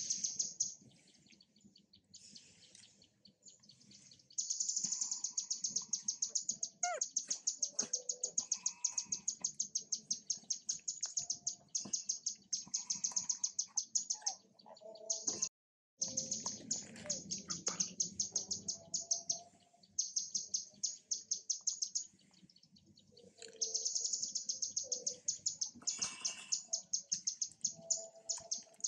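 A bird chirping in long, fast, even runs of high notes, about ten a second, with pauses between the runs. The sound cuts out for a moment about halfway through.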